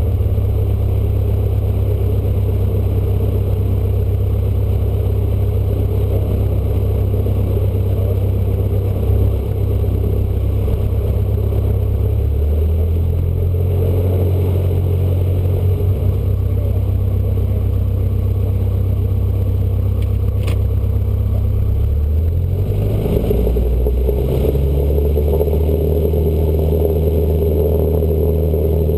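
Cessna 152's Lycoming O-235 four-cylinder engine and propeller running at low taxi power, heard inside the cockpit. The engine note steps up a little about halfway through and again near the end as the throttle is moved.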